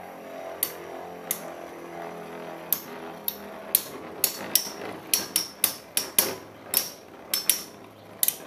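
Two metal Beyblades, Lightning L-Drago and a Pre Hybrid L-Drago, spinning in a plastic stadium with a steady whirr and striking each other in sharp metallic clicks. The clicks come a few seconds apart at first, then fast and close together over the second half as the tops clash again and again.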